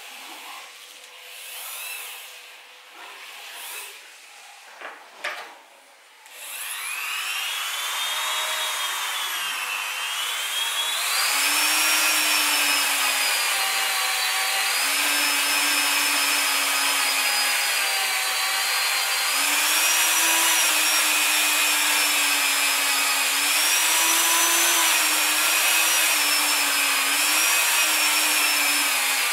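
Light handling and rubbing sounds, then a handheld rotary tool spins up about six seconds in, its whine rising in pitch. It then runs loud and steady, its pitch dipping and recovering as the bit is pressed against the edge of a kydex sheath.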